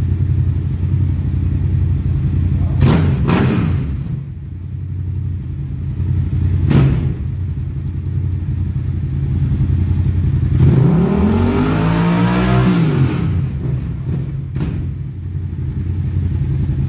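Yamaha MT-07's 689 cc parallel-twin engine idling, with a few short throttle blips and one longer rev that rises and falls about eleven seconds in.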